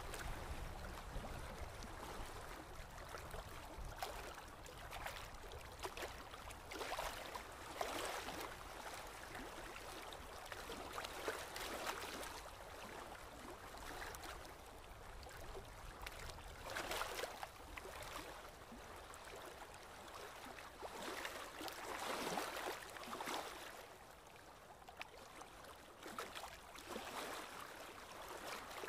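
Rice in tomato broth bubbling in a metal pot, then a fork and spoon scraping and turning the cooked rice against metal, in irregular strokes about a second apart.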